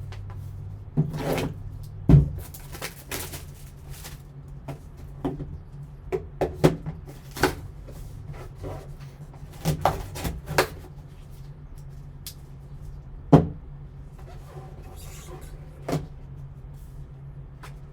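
Hands opening and handling a sealed sports-card box and its packaging: scattered clicks, taps and rustles, with sharper knocks about two seconds in and again near thirteen seconds. A steady low hum runs underneath.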